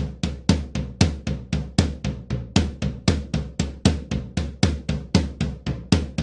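Intro music made of a drum-kit beat, bass drum and snare, with sharp evenly spaced hits about four a second.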